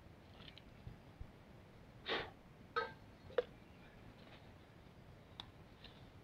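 A stuff sack and a packet handled by hand: one short rustle about two seconds in, then two sharp light knocks, with a few faint ticks around them.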